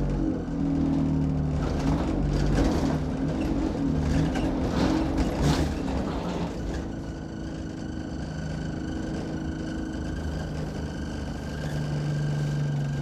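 Inside an Enviro 200 Dart single-deck bus: the diesel engine runs, with rattles and knocks from the bodywork. About seven seconds in, the rattling eases and a steady high whine comes in over the engine.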